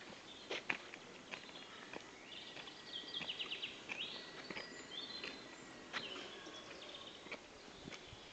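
Small songbirds singing in woodland, with a quick high repeated trill about three seconds in and more phrases over the next few seconds. Scattered footsteps on a dirt path underneath.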